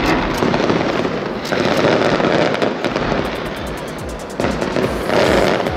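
Aerial firework shells bursting in a display, with dense crackling, and louder bursts about a second and a half in and near the end.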